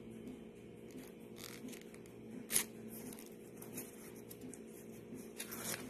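Faint rustling and scraping of a hand handling the soft baked buns on the plate, with one sharp scrape about two and a half seconds in and another near the end, over a steady low hum.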